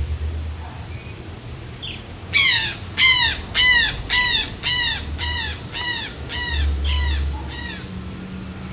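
A bird calling a series of about ten repeated notes, about two a second, starting about two seconds in and growing fainter toward the end.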